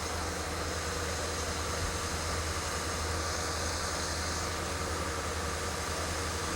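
Backhoe engines running steadily, a constant low hum with no change in level.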